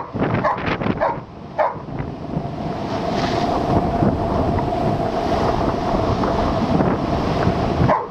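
Strong wind buffeting the microphone over storm waves surging against a rocky shore. A German Shepherd gives a few short barks in the first couple of seconds.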